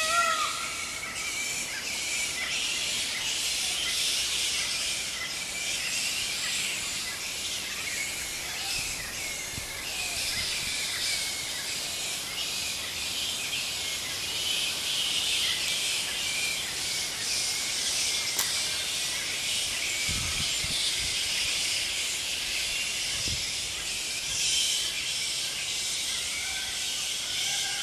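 Steady outdoor ambience: a constant high hiss with small birds chirping in the background. A couple of low thumps come around twenty seconds in.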